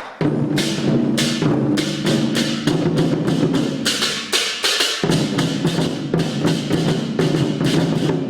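Lion dance percussion ensemble playing: a big drum beaten with clashing cymbals and a ringing gong, in a quick, driving rhythm of several strokes a second. There is a brief break right at the start.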